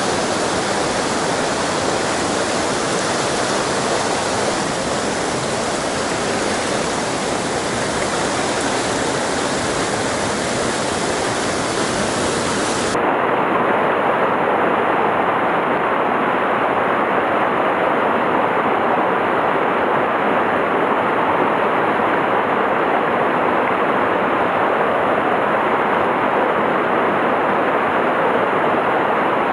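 Mountain stream rushing over boulders in white-water rapids, a loud steady rush. About halfway through the sound changes abruptly, turning slightly louder and losing its high hiss.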